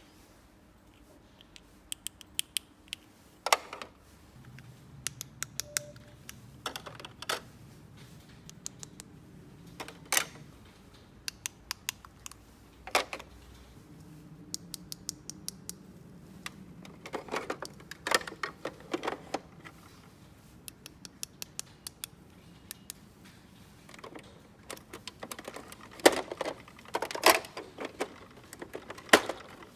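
Irregular clicks and taps of small hard plastic toy pieces being handled and snapped together, some in quick clusters, the loudest near the end.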